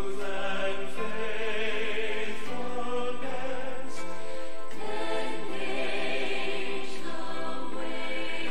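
Choral music: voices singing slow, long-held notes.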